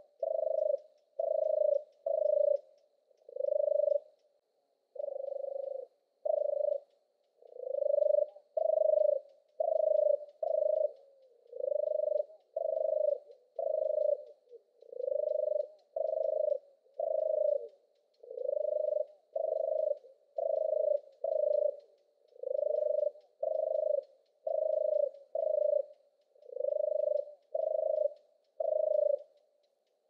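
European turtle dove singing its purring song: low rolling notes about half a second each, repeated in runs of two or three with short pauses between, stopping just before the end.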